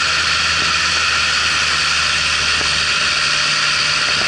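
Motorboat under way at speed: its engine runs with a steady low hum beneath a loud, even hiss of rushing water and wind.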